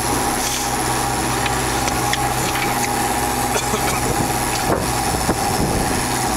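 A boat's engine runs at a steady idle, with a few faint knocks about halfway through.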